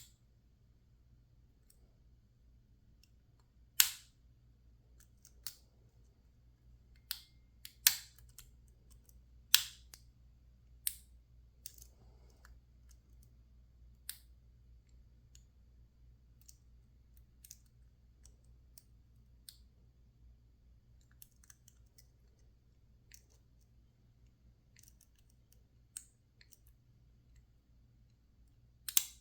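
Lock picks working in a PacLock 410 Pro padlock: scattered sharp clicks and ticks, with a few much louder ones about four, eight and ten seconds in.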